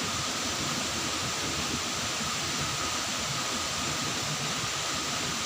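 Waterfall's falling water rushing steadily, an even, unbroken noise.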